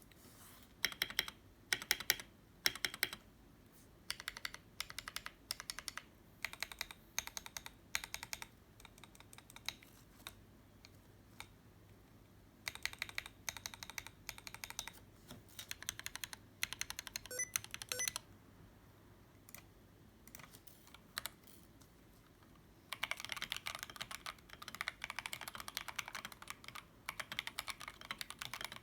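Akko 3084 v2 mechanical keyboard with stock Akko Jelly Black linear switches and lubed stabilizers, out of its case and resting on cardboard, being typed on in bursts with short pauses. A few heavy single strokes come near the start, and a run of fast, steady typing begins near the end.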